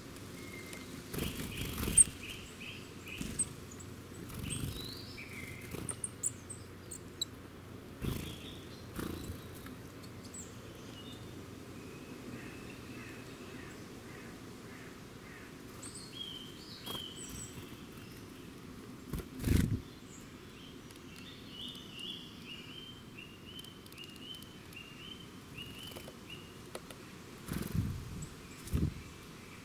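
Wild birds singing and calling in short phrases of high notes, one phrase a run of repeated notes. Several dull thumps break in, the loudest about two-thirds of the way through and two more near the end.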